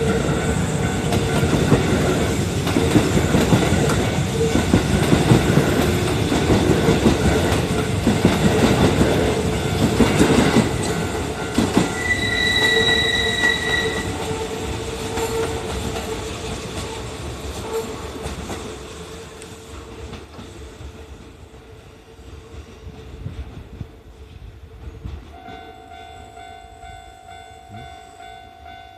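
Kintetsu electric train passing over a level crossing, its wheels clattering rhythmically over the rail joints, with a short high horn note about twelve seconds in. The sound dies away after about eighteen seconds, leaving a quieter steady ringing tone.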